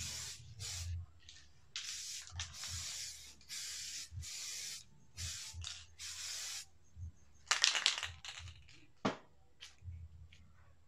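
Aerosol spray paint can hissing in short bursts, about one a second. Near the end there is a louder crackling burst, then a sharp click.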